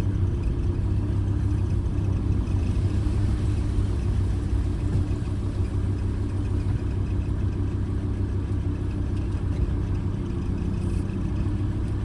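Campervan engine idling steadily, heard from inside the cab.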